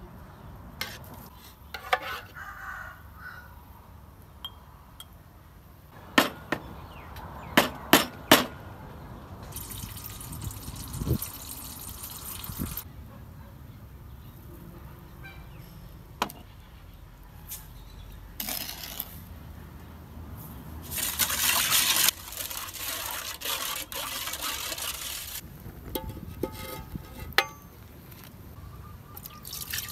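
A metal ladle clinks sharply against glass and metal several times, with a quick run of four knocks. Between them come stretches of liquid being ladled, poured and stirred in a pot.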